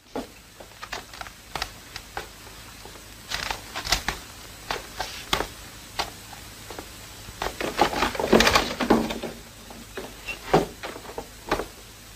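Irregular light knocks and clicks over a steady faint hiss, with a louder cluster of knocks and rustling about eight seconds in.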